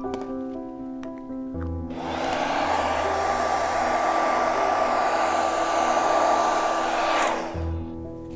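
Hand-held hot-air dryer blowing on a freshly painted acrylic journal page to dry the paint: switched on about two seconds in, a steady rush of air with a thin steady whine, cut off just after seven seconds. Soft piano music plays underneath.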